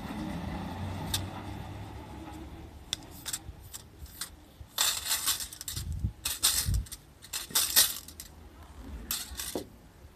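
Metal fan rake's thin steel tines scraping and jingling across grass and dirt as cut weed clippings are raked, in about four short strokes in the second half.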